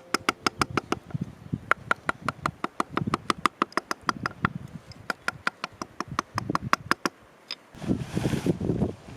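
Rapid, even light taps of a mallet on a wood-carving gouge cutting into pine, about five a second, then a short burst of rustling near the end.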